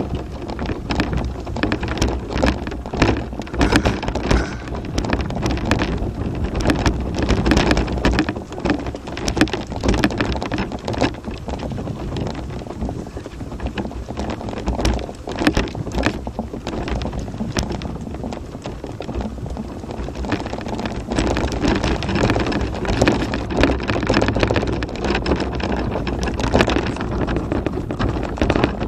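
Tramper off-road mobility scooter rolling along a rough chalk and gravel track: a steady low rumble with tyres crunching and many small clicks and knocks, over wind buffeting the microphone.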